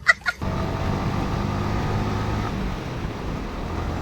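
Yamaha R15 V4's single-cylinder engine running at a steady cruise while the bike is ridden, with an even rush of road and wind noise.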